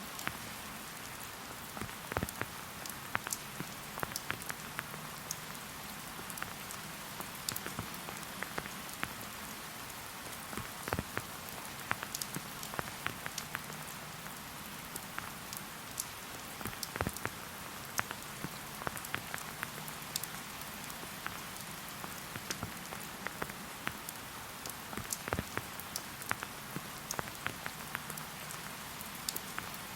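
Rain falling in a forest: a steady soft hiss with many individual drops ticking sharply and irregularly.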